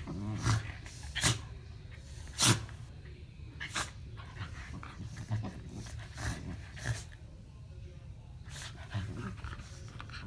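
Two Shetland sheepdogs play-fighting: low growling under about seven short, sharp bursts of noise, the loudest about two and a half seconds in.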